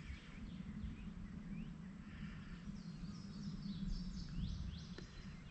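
Birds chirping in short, quick rising and falling notes, busiest about three to four seconds in, over a steady low outdoor background noise; a single sharp click near the end.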